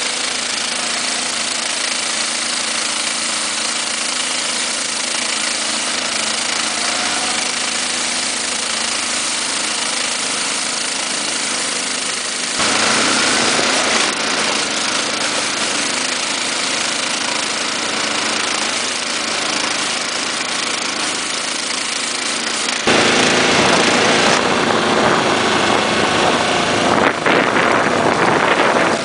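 Small 190 cc Honda petrol engine running steadily under load, driving a rotating sweeper brush that throws snow, with the ATV's engine running too. The sound changes abruptly about 13 seconds in and steps up louder about 23 seconds in.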